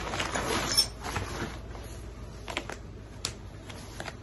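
Handling noise from a fabric gear bag: a burst of rustling as the bag is swung and set down, loudest about a second in, then a few light clicks and knocks as gear is moved.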